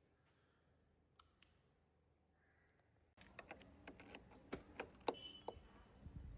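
Near silence with two faint clicks, then a quick, irregular run of light clicks and taps starting about three seconds in.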